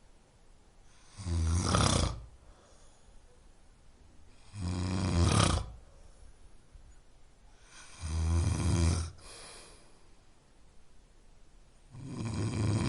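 A person snoring: four snores, each about a second long, coming roughly every three and a half seconds.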